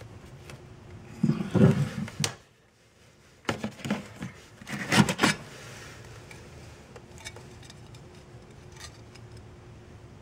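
Scored sheet glass being snapped apart and handled by gloved hands: a few loud knocks and sharp clicks of glass in the first five seconds or so, then quieter scrapes and ticks as the broken pieces are handled.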